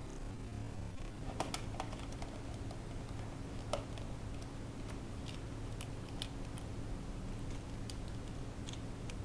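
Scattered light clicks and taps, a dozen or so at irregular intervals, as a wooden snap mousetrap is handled and set on a tile floor, over a steady low hum.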